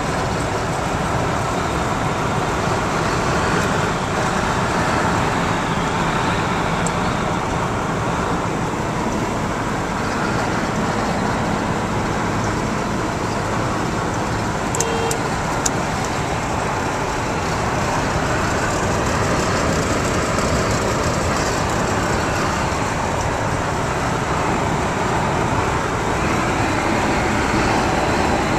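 Steady in-cabin drone of a 1977 Citroën CX 2400 Pallas cruising at highway speed: its 2.4-litre four-cylinder engine with tyre and wind noise. A couple of faint clicks and a short beep come about halfway through.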